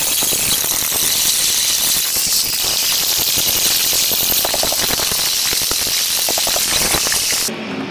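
Road and wind noise heard inside a moving car: a loud, steady hiss with rattling and a few short squeaky tones around the middle. It cuts off abruptly near the end.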